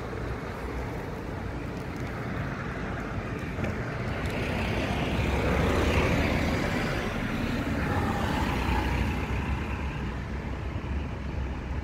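A road vehicle passing: a steady low rumble, with tyre and engine noise swelling about four seconds in, loudest around six seconds, then fading.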